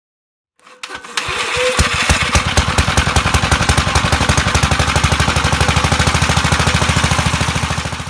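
Sears Suburban 12 garden tractor's engine starting up about a second in and then running at a steady speed with an even, rapid firing beat.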